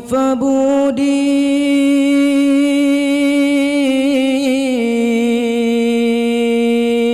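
A male solo voice, amplified through a microphone, sings one long held note of an Arabic devotional hadroh chant. About four seconds in the pitch wavers in an ornament, then it settles a step lower and holds there.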